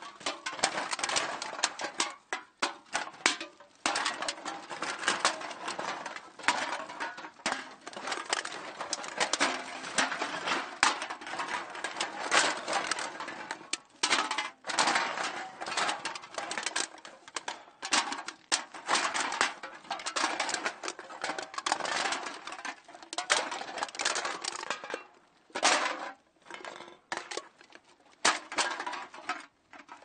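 Metal cans being dropped into a bag, clattering and clinking against one another in a dense run of knocks, with a few short pauses near the end.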